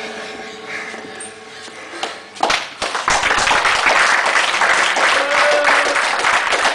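Spectators clapping and applauding, starting suddenly about three seconds in after a couple of sharp knocks, and carrying on loudly.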